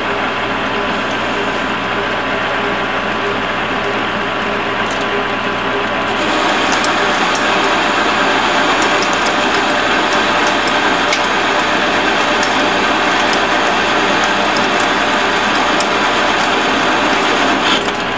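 Metal lathe running with its turning tool taking a skim cut along steel bar stock to clean off the mill scale. The cut gets louder about six seconds in, with scattered ticks from the chips, and drops off just before the end.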